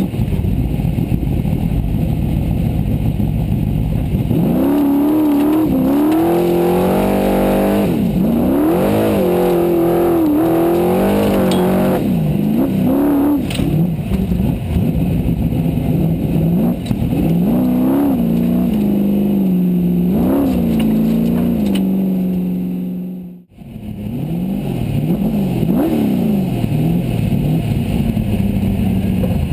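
Formula Offroad race buggy's engine heard from inside the car, running hard and revving up and down over and over as the throttle is worked. The sound drops out sharply for a moment about 23 seconds in, then the revving resumes.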